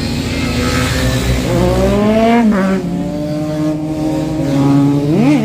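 Motorcycle engine under way. The revs climb for about a second, drop sharply at a gear change, run steady, then rise and fall in a quick throttle blip near the end.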